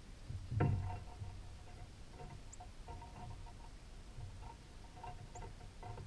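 A knock about half a second in, then faint, intermittent scraping and creaking, with a few brief faint high chirps.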